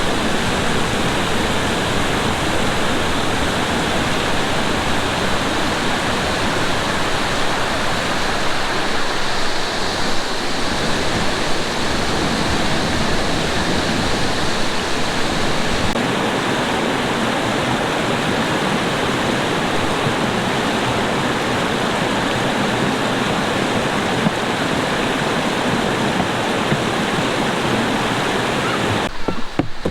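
Waterfall rushing: a loud, steady roar of falling water that cuts off abruptly near the end.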